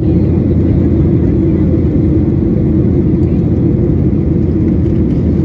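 Cabin noise of a jet airliner in flight: a loud, steady, low rumble of engines and rushing air heard from inside the passenger cabin.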